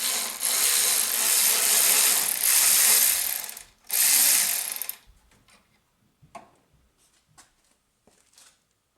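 A ratchet spinning a bolt out of the engine's intake manifold in a long harsh run of about three and a half seconds, a brief pause, then another second of ratcheting. A few faint knocks follow. The bolt is only lightly rusted.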